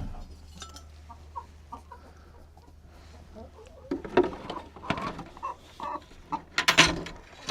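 Hens clucking in short soft calls, busier in the second half, with a louder sharp scuffle a little before the end over a steady low hum.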